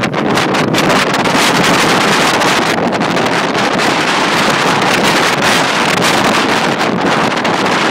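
Hurricane winds buffeting the microphone in a loud, steady rush of noise, with waves breaking on the shore beneath it.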